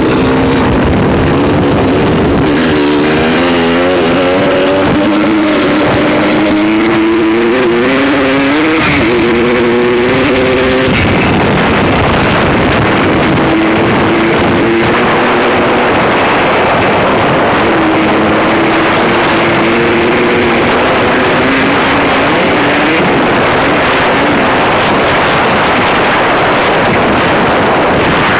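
Suzuki RM125's single-cylinder two-stroke engine revving while riding, its pitch climbing and dropping again and again for the first ten seconds or so. After that a rushing noise, wind on the microphone, mostly covers it, and the engine tone comes through only now and then.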